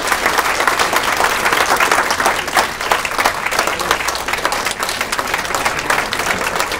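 An audience applauding: many hands clapping steadily together.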